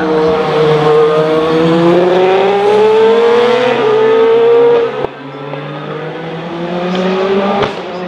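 Le Mans prototype race car engines accelerating hard out of a corner, the note climbing steadily in pitch. About five seconds in the sound drops suddenly to a quieter, more distant car that is also accelerating away.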